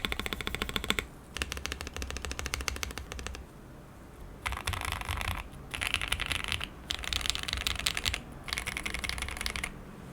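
Typing on an ai03 Polaris mechanical keyboard with lubed Banana Splits linear switches, a full PC plate and GEEKARK keycaps: quick runs of key clicks, a short pause around the fourth second, then four fast bursts of typing.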